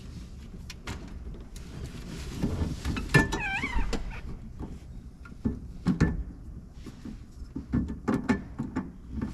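Scattered clicks, knocks and rattles of hands and tools working on the tractor cab's plastic trim panels and screws, with a brief wavering squeak about three seconds in.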